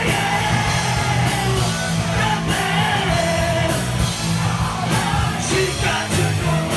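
Live rock covers band playing electric guitar, bass and drums, with a lead singer and a packed crowd singing and shouting along.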